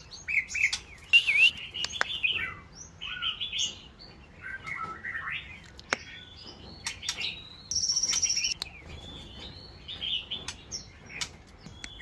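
White-rumped shama singing in a cage: a run of varied whistled phrases, with sharp clicks between them and a high, steady note held for about a second about two-thirds of the way through.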